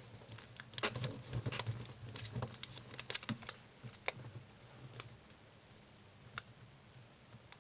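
Sheet of origami paper being folded and creased by hand: a run of small crackles and taps for the first few seconds, then only a few scattered clicks.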